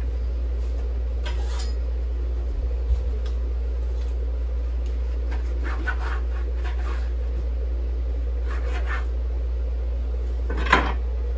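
Kitchen knife scraping and cutting against a wooden cutting board while a raw goose is trimmed, in short, irregular scrapes every second or two, over a steady low hum.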